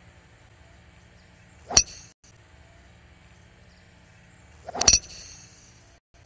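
Metal fairway wood striking a golf ball off the turf, twice, about three seconds apart: each a sharp crack with a short metallic ring.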